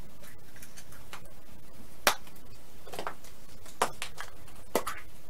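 Hollow plastic Easter eggs being handled, opened, snapped shut and set down on a table: a handful of sharp plastic clicks about a second apart, with light handling between them.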